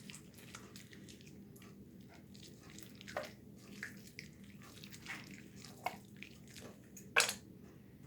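Soapy hands being washed with the 2-in-1 shampoo, making scattered faint wet squishes and drips, with one louder splash about seven seconds in.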